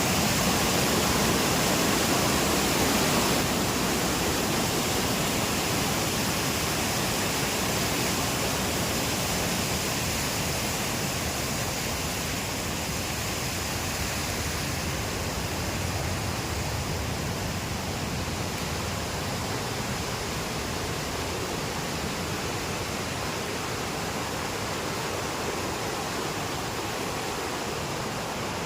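Steady rush of water from a fast-flowing mountain river, a constant noise that fades slightly over the stretch.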